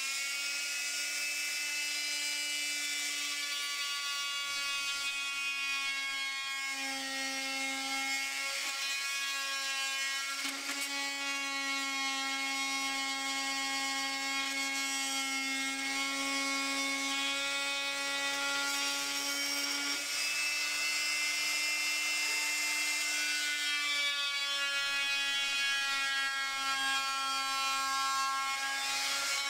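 Electric oscillating multi-tool with a circular saw blade running steadily as it cuts a thin fiberglass sheet: a steady buzz with many overtones, its pitch shifting slightly now and then.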